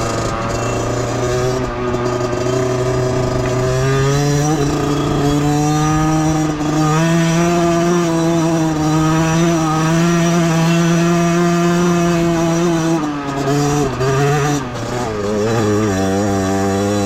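Beta 50cc two-stroke motorcycle engine running with a buzzing note: the revs climb over the first few seconds and hold steady, then drop about thirteen seconds in, waver briefly and settle at lower revs.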